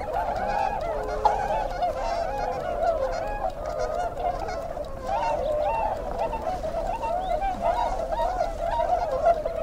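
A flock of birds calling over one another in a dense, unbroken chorus of many short, wavering calls.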